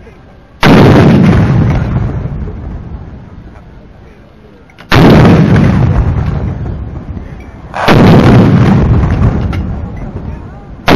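Towed artillery guns firing a ceremonial gun salute: three single booms, about a second in, about five seconds in and about eight seconds in. Each starts suddenly and dies away slowly in a long rumble over several seconds.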